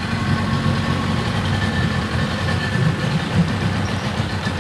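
Small outboard boat motor idling steadily.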